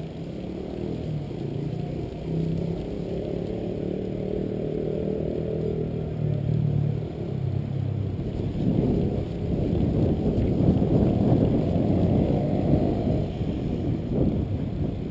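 Riding noise picked up by a handlebar-mounted camera on a mountain bike rolling along asphalt. For the first half a low, steady hum shifts pitch in small steps. It then gives way to a heavier rumble and wind buffeting on the microphone.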